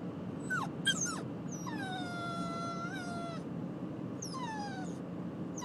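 Puppy whining in high, thin cries that fall in pitch: a short one about half a second in, another around a second, a long held whine of over a second, and a falling one past the four-second mark. A steady low rumble of truck road noise runs underneath.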